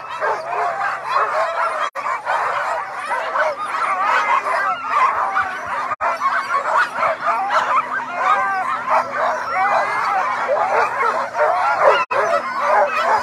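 A dense chorus of many sled dogs (Alaskan huskies) barking and yipping over one another without pause: the excited din of harnessed teams eager to run at a race start.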